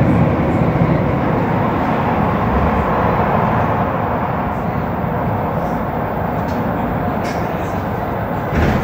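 Montréal Metro Azur (MPM-10) car running on rubber tyres, heard from inside the car: a steady rolling and running noise, with a brief louder burst near the end.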